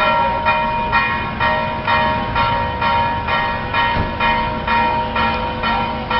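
Church bell ringing in fast, even strokes, about two a second, each stroke's ring running on into the next.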